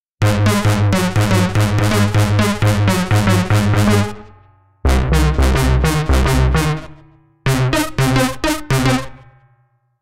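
Dawesome Novum granular software synthesizer playing its "Lead Bass Syn 4" preset: a bass line of quick, short repeated notes in three phrases, each fading out before a brief gap.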